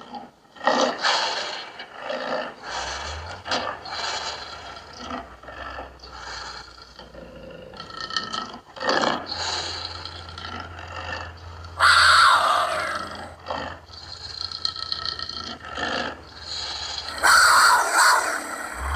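A run of big-cat growls and roars pieced together from cheetah, leopard and cougar recordings, as short separate calls. Two louder, harsher calls come about twelve seconds in and near the end.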